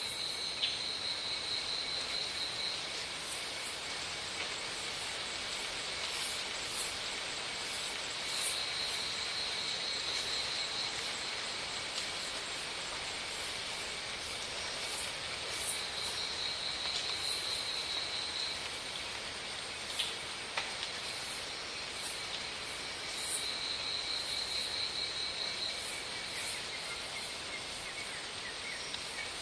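Insects calling: a high, pulsed trill lasting about two and a half seconds that repeats roughly every seven seconds, over a steady high-pitched insect whine and a constant hiss.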